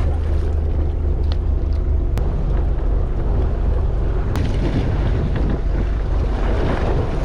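Steady low rumble on a fishing boat at sea: the boat's engine mixed with wind on the microphone and the wash of the sea, with a few short sharp ticks.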